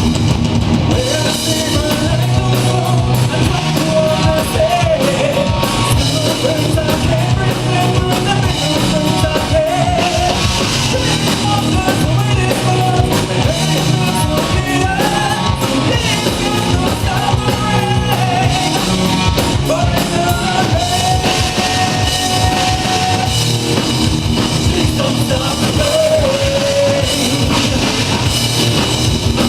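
Rock band playing a song: a sung lead vocal over a drum kit and backing instruments.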